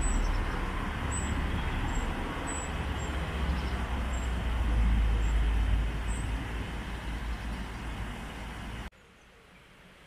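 Stream water rushing steadily over a small weir, with a heavy low rumble under it. The sound cuts off suddenly near the end, leaving a much quieter outdoor hush.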